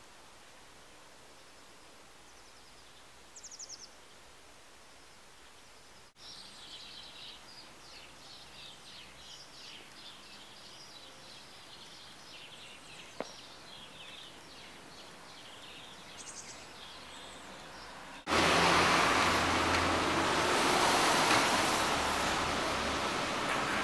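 Small birds chirping and twittering in short, high calls over a quiet outdoor hush. About eighteen seconds in, the sound switches abruptly to a much louder steady rushing noise with a low hum underneath.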